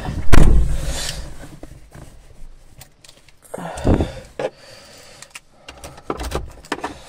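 A Suzuki car's door slamming shut about a third of a second in, with a heavy thud that dies away over about a second, followed by scattered small clicks and rattles from inside the car's cabin.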